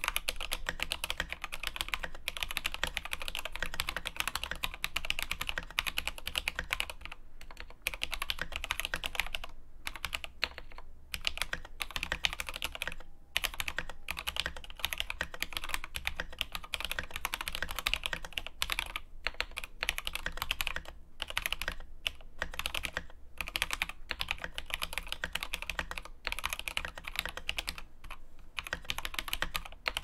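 Fast continuous typing on a Krux Atax Pro mechanical keyboard fitted with Gateron Yellow Pro linear switches and lubed stabilizers: a dense run of keystroke clacks, with a few brief pauses.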